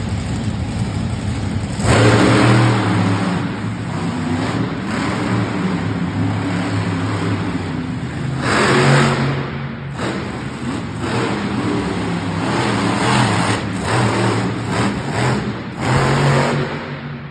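Monster truck engine revving in repeated bursts as the truck runs over the dirt course, with the loudest peaks about two seconds in, around nine seconds and near the end.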